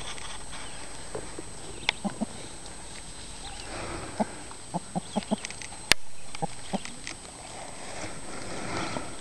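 Rooster clucking: short low clucks, some in a quick run of about four a second. A single sharp click a little past the middle is the loudest sound, with soft rustling in the grass between the clucks.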